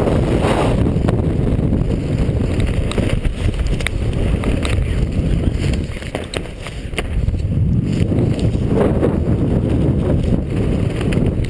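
Freefall airflow rushing and buffeting over a helmet-mounted GoPro, a loud, low, steady roar with scattered sharp flutter ticks, easing briefly about halfway through.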